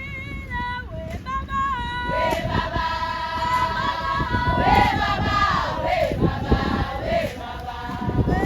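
A group of voices singing together in chorus. The singing grows fuller about two seconds in, over a steady low rumble.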